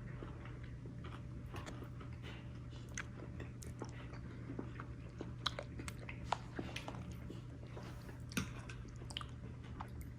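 Close-up chewing and mouth sounds of someone eating, with many small crunchy clicks scattered throughout. A steady low hum runs underneath.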